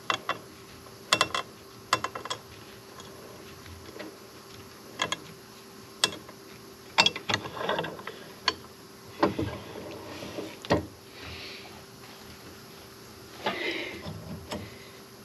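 Small metal parts and tools being handled and set down: a scattered series of sharp clicks and clanks, some ringing briefly, with short rattles, over a faint steady hum.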